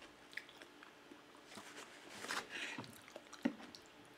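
A person chewing a mouthful of food close to the microphone: soft wet mouth smacks and small clicks, with one sharper click about three and a half seconds in.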